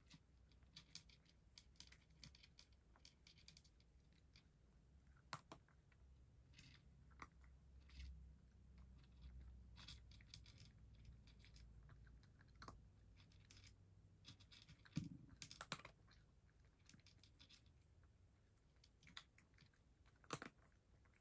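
Faint, irregular clicking of a cat eating from a dish as it licks and chews, with a few sharper clicks about fifteen seconds in and near the end.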